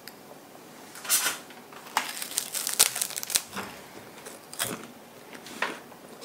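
Crisp puffed rice cakes being bitten and chewed: irregular crackling crunches, one loud bite about a second in, a quick run of crunches through the middle, then a few more near the end.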